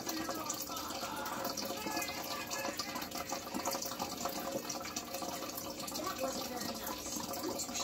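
Water trickling and splashing steadily in a turtle's glass tank, with many small splashes and drips.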